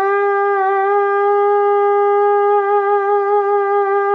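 Goat-horn bukkehorn with no finger holes, blown with buzzing lips like a trumpet mouthpiece, sounding one long steady note.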